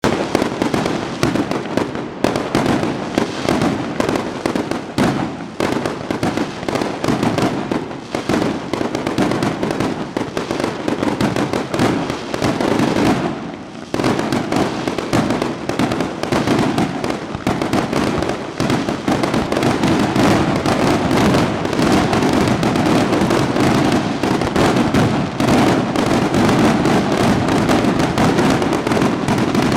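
Fireworks display: a dense, unbroken run of bangs and crackling bursts, with a short lull about halfway through before the barrage resumes.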